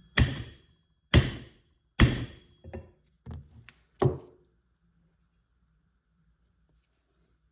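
Sharp metal taps on a pool pump motor bearing, four firm strikes about a second apart, each with a brief metallic ring, followed by a few lighter taps, as the bearing is driven.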